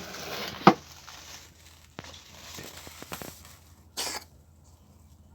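A cat coughing and sneezing. One sharp, explosive burst comes about two-thirds of a second in and is the loudest. A few smaller bursts follow, and a second hissy burst comes about four seconds in.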